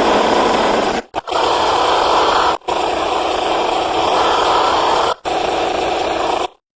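A tiger growling in long, loud stretches, four of them, each cut off abruptly with a brief gap before the next, as if spliced from separate recordings.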